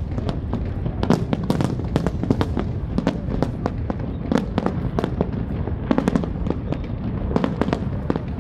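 Aerial fireworks display: a rapid, irregular stream of bangs and crackling bursts, several a second, over a continuous low rumble of shell explosions.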